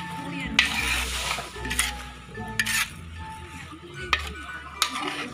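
Metal ladle stirring shrimp in a large steel wok, scraping and knocking against the pan several times, over a low sizzle from the sauce.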